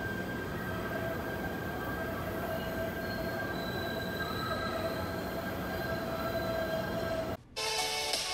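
PATH subway train in the station tunnel, its steel wheels squealing with several steady high tones over a rumble. About seven seconds in it cuts off suddenly and music starts.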